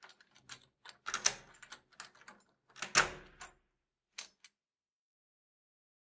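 Light door being shut and locked with a key: a run of latch and handle clicks, the loudest thump as the door shuts about three seconds in, then two quick clicks about a second later.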